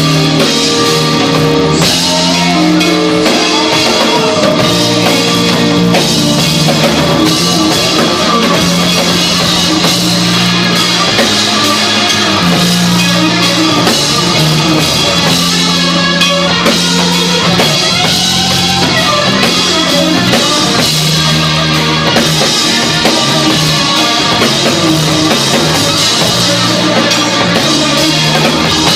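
A rock band playing live, an instrumental passage without vocals: drum kit, electric guitar and bass guitar holding long low notes.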